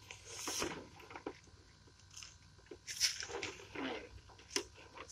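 Plastic sprayer tank being pushed down into its fabric backpack carrier: a few rustling scrapes and light knocks from the handling.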